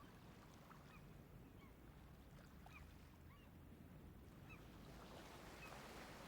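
Faint nature-sound tone played by an Honor 9S smartphone: scattered short bird chirps over a low steady rumble.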